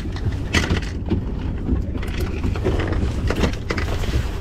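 Steady low rumble with scattered sharp clicks and knocks as metal pliers work a hook out of a landed albacore tuna's jaw on the boat deck.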